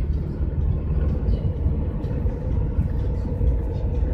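Inside the cab of a GAZelle van at highway speed: a steady low rumble of engine and tyres on the road, with a faint steady hum above it.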